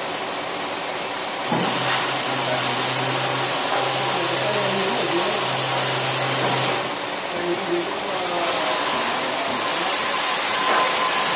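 Motor-driven circular saw cutting logs: a cut starts about a second and a half in and runs for about five seconds with a low steady hum under it, eases off briefly, and a second cut starts about eight seconds in.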